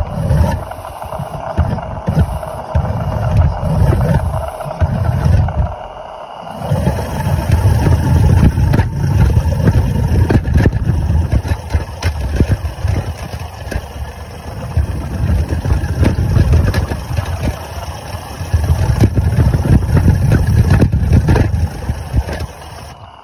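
Maxitrak 3/4-inch scale Sentinel DG6 live-steam wagon running along a paved path, heard from on board: a loud, uneven rumble of the wagon under way that swells and drops, dipping briefly about six seconds in.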